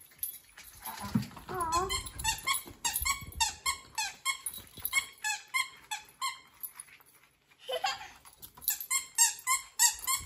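Squeaky plush dog toy squeezed over and over in quick runs of short squeaks, pausing for about a second midway.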